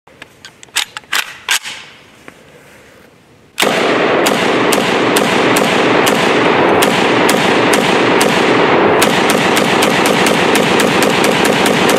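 Micro Draco 7.62×39 AK pistol firing: a quick string of shots, then a pause, then a steady run of shots about two a second that speeds up to four or five a second near the end. From the second string on, a constant loud rushing noise runs under the shots.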